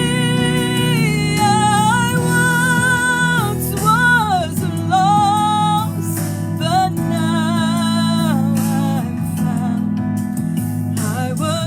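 Worship music: a singer holding long notes with vibrato over sustained instrumental chords.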